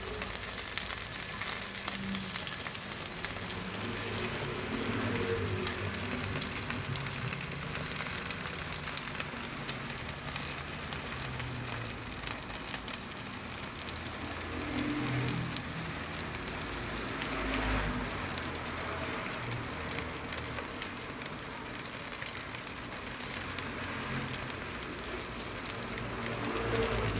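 Potstickers frying in oil in a flat pan: a steady, rain-like sizzle full of fine crackles.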